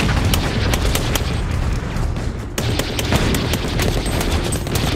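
M1919A4 .30-calibre belt-fed machine gun firing short bursts amid a dense din of battle gunfire and low booms. The firing eases briefly about halfway through.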